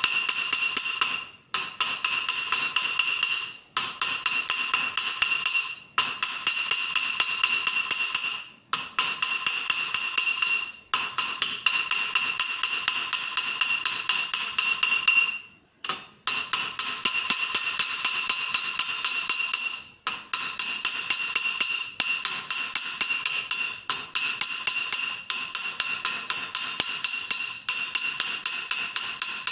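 Small hammer rapidly tapping a brass .50 BMG cartridge case over a steel ball bearing on an anvil, with a high metallic ring. The taps come in runs of a few seconds with brief pauses between, knocking out ridges and expanding the brass against the ball.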